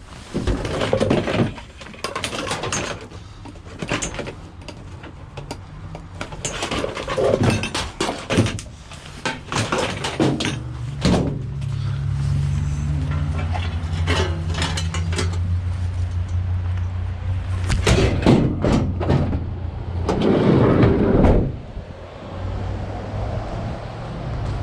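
Knocks and clatter, then a van's engine starts about halfway through and runs with a steady low hum.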